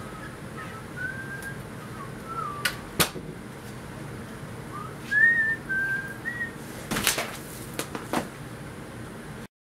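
A person whistling a few short, gliding phrases of a tune, broken by several sharp clicks, the loudest about three seconds in and around seven seconds in.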